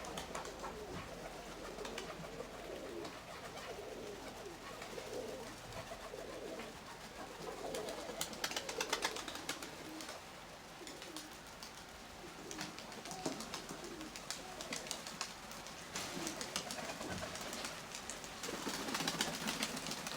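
Nikolaev pigeons cooing in a loft: repeated low, rounded coos. Spells of rapid clicking and tapping come in about eight seconds in and again over the last few seconds, and these are the loudest moments.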